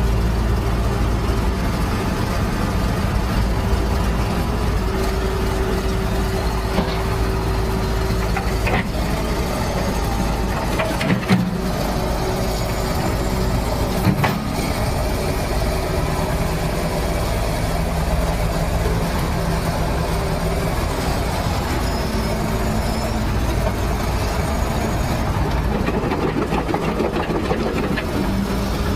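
Heavy vehicle engine running steadily with a deep drone, with a couple of short knocks about eleven and fourteen seconds in.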